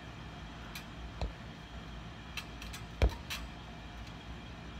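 Tetherball being slapped by hand: two hollow rubber thumps, a light one about a second in and a much louder one about three seconds in, with faint ticks in between.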